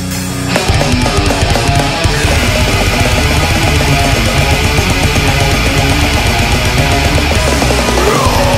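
Deathcore/grindcore music with distorted guitars and drums. A thinner held passage gives way to the full band coming in hard about half a second in, and a sliding high note appears near the end.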